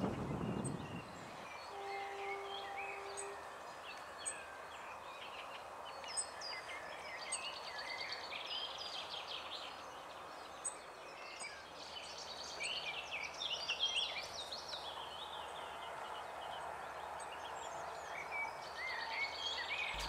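Outdoor spring birdsong from several small birds, many short chirps and trills over a steady background hiss. A brief steady low tone sounds about two seconds in.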